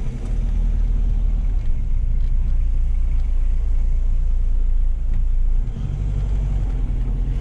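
Mk5 Golf with a 2.0 TDI PD four-cylinder diesel rolling out under way, its engine and road noise a steady low rumble that dips briefly and shifts about five and a half seconds in.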